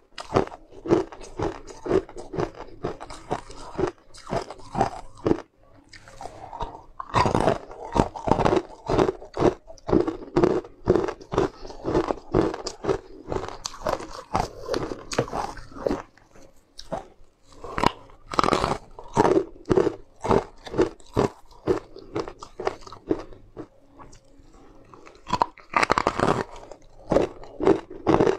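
Close-up crunching and chewing of hard, sugar-crusted translucent candy: many crisp crunches in quick succession, with louder bites about a quarter in, about two-thirds in and near the end, and softer chewing in between.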